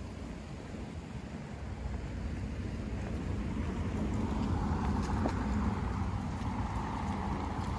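Wind buffeting the microphone as a low rumble, with a car going by on the street, its tyre and engine noise building from about three seconds in and staying loud toward the end.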